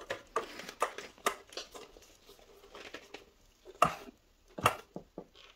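Screwdriver turning a loose screw tight in an electric scooter's deck: scattered small metal clicks and scrapes, with a few sharper knocks about four to five seconds in.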